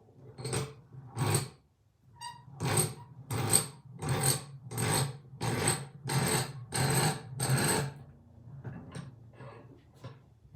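Restored Craftsman 4-inch bench vise being worked by hand: a regular run of about ten short strokes, roughly one every 0.7 s, then a few fainter, uneven ones near the end.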